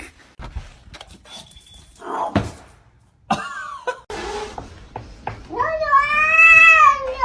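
A cat's long drawn-out meow that rises and then falls in pitch, starting about five and a half seconds in, after a few scattered knocks and rustles.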